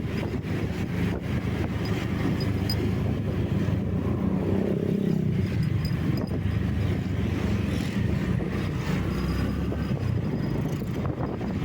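Vehicle engine running under way, with road and wind noise; the engine note shifts up and down a little.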